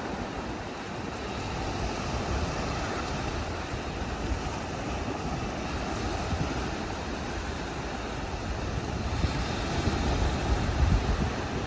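Sea waves washing on a beach, with wind buffeting the microphone in low rumbling gusts that grow stronger near the end.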